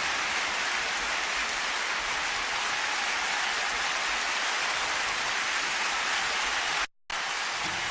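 Concert crowd applauding and cheering in a steady wash of noise between songs. The sound cuts out for a moment about seven seconds in.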